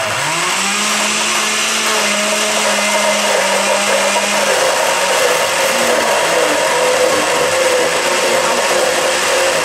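Countertop blender motor running continuously, chopping basil, garlic and olive oil for pesto while a spatula pushes the leaves down into the blades. The motor speeds up in the first second and then runs at a steady pitch.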